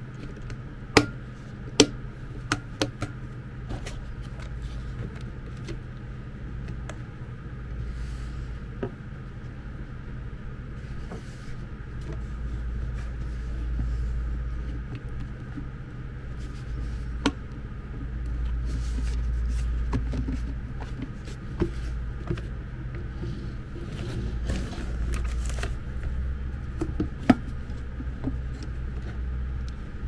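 Hand-handling of an electric kettle's plastic handle as its parts are pressed and fitted together: scattered sharp plastic clicks and rubbing, the loudest a pair of clicks early on, over a steady low hum and a low handling rumble that swells and fades.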